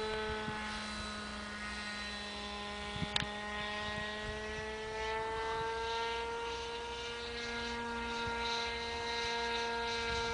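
Motor and propeller of a radio-controlled powered glider in flight overhead: a steady, thin drone whose pitch sags slightly and then rises again about halfway through as the plane moves. A single short click about three seconds in.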